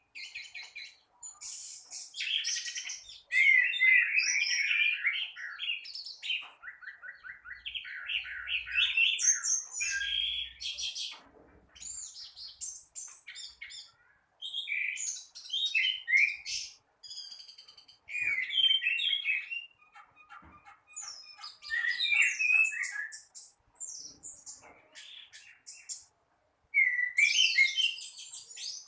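Orange-headed thrush singing at length: a rich, varied run of rapid phrases, fast trills and chattering notes, broken by short pauses.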